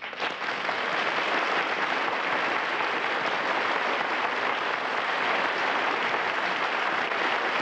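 Studio audience applause, an even steady clatter of many hands at the close of the act.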